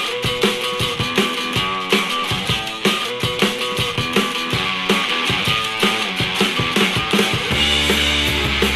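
Rock music with a steady beat played through a KitSound Hive X 20 W Bluetooth speaker in a sound test; a deep bass comes in near the end.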